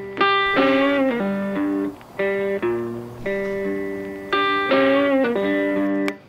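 Instrumental guitar music: plucked notes that start sharply and fade, picking out a repeating melody over lower held notes.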